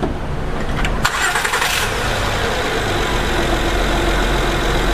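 2011 Honda Odyssey's 3.5-litre V6 being started: a click and a short burst of starter cranking about a second in, then the engine catches and runs at a steady idle.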